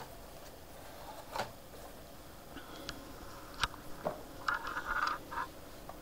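Hands handling a cardboard box and the packaging inside it: scattered light knocks and clicks, with a short scraping rustle about four and a half seconds in.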